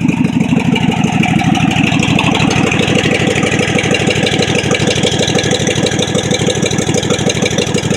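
Craftsman lawn mower engine running with a fast, even firing rhythm. Its pitch lifts slightly in the first couple of seconds, then holds steady.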